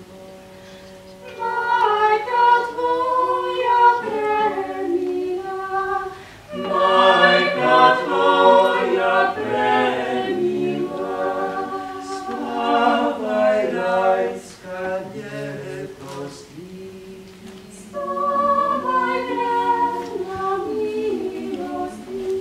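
Small mixed vocal ensemble of five singers, four women and a man, singing a cappella in close harmony over a sustained low note. The phrases pause briefly near six seconds, then come back fuller and louder.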